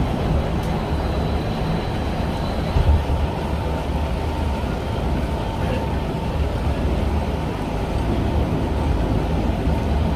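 Cabin noise of an SMRT C151 train running between stations: a steady low rumble of wheels on the track, with a brief heavier bump about three seconds in.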